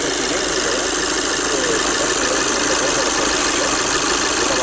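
Volkswagen Jetta's common-rail diesel engine idling, a steady, unchanging running noise.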